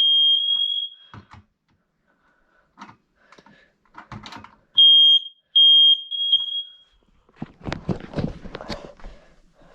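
Smoke alarm sounding its high-pitched test beeps as its test button is pressed. The beeping stops about a second in and starts again for about two seconds around five seconds in. Clicks and knocks fall in between, and there is a stretch of bumping and rustling near the end.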